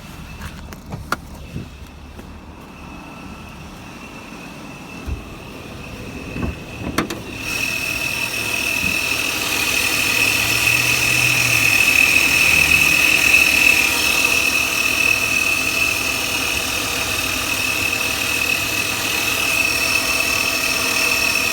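Car engine idling with a steady high-pitched whistle from the throttle body. The idle speed is unstable, swelling up and settling again partway through. A few clicks and knocks come before the whistle sets in, about seven seconds in.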